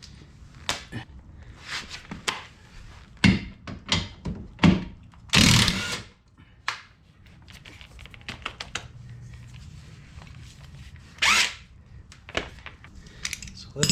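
Metal tools and fasteners knocking and clinking irregularly while suspension bolts are worked loose on a classic Porsche 911's rear trailing arm, with a short noisy burst about five seconds in and another sharp burst near eleven seconds.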